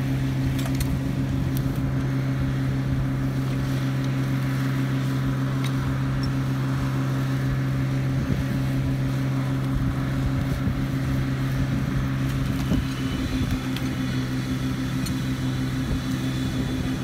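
1951 Dodge 3.5-ton log truck's engine running steadily at an even pitch, powering the side-loading gear as logs are hauled up onto the load, with a few sharp knocks of wood and cant hooks near the start and about six seconds in.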